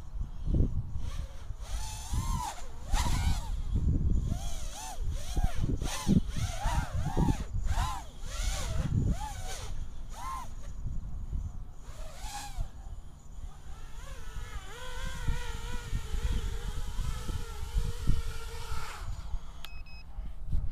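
FPV acro quadcopter's brushless motors whining, the pitch swooping up and down again and again as the throttle is punched through acro moves, then holding a steadier whine for several seconds before cutting off as it lands. A brief beep follows near the end, over a low rumble of wind on the microphone.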